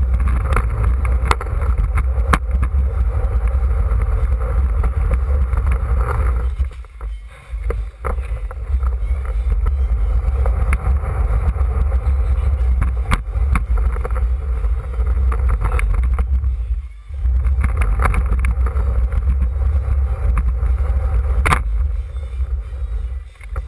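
Skateboard wheels rolling across a floor, a loud steady rumble picked up by a camera mounted on the board itself, with occasional sharp clicks. The rumble stops briefly twice, about seven and seventeen seconds in.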